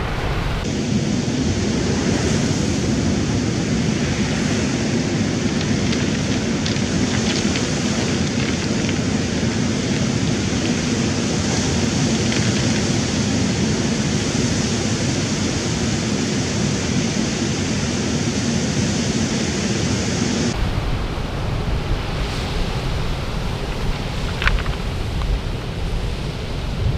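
Ocean surf breaking and washing up onto a pebble beach: a steady rush, with wind buffeting the microphone. The sound shifts in tone about a second in and again about three-quarters of the way through.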